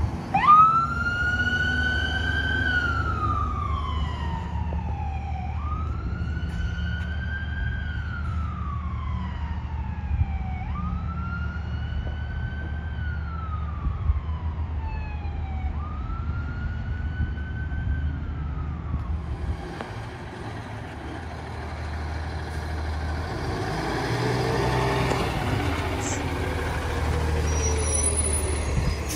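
Fire rescue squad truck's siren wailing in slow rise-and-fall cycles about every five seconds, growing fainter as the truck drives off, over the steady rumble of a fire engine's motor running nearby. The siren stops about two-thirds of the way through, leaving the engine rumble, which swells near the end.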